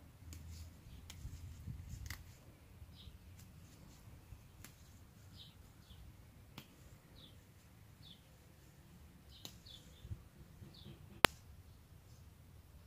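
Mint stems being snapped off by hand, with scattered small snapping clicks and leaf rustle, while small birds chirp faintly now and then. One sharp click a little past eleven seconds is the loudest sound.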